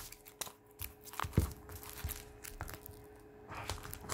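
Plastic shrink-wrap on a softcover book crinkling and tearing as it is opened, in irregular crackles with a few louder snaps in the first second and a half.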